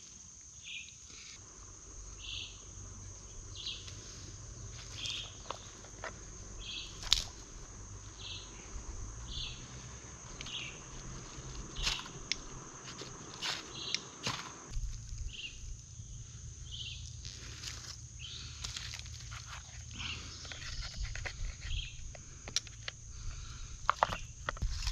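Snaps, cracks and rustles of small sticks and twigs being cut, broken and laid out by hand for kindling, the sharpest crack about a third of the way in. Behind them runs a steady high whine, with short high chirps repeating about once a second.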